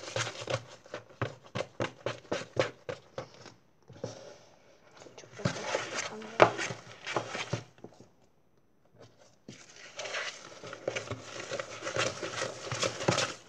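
Fluffy soap-foam and borax slime being stirred and worked in a large bowl: a quick run of squishy clicks and scrapes, several a second. It breaks off twice, going quiet for a second or two past the middle, then starts up again.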